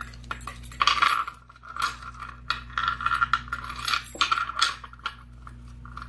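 Keys on a keyring clinking and jingling against a brass Yale lock cylinder as a key is worked into its keyway: a busy run of light metallic clicks and rattles that tails off near the end.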